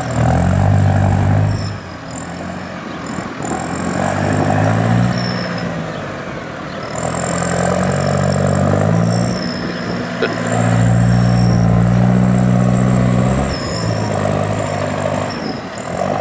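Massey Ferguson 5455 tractor engine running under load, revving up in about five repeated surges as it climbs and works the silage clamp with a buckrake. A high whine rises and falls with each surge.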